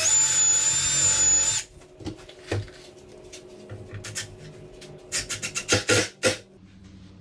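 Cordless drill driving a screw into the chair's wooden apron: the motor runs with a steady whine for about a second and a half, then stops. Near the end comes a quick run of clicks and rattles.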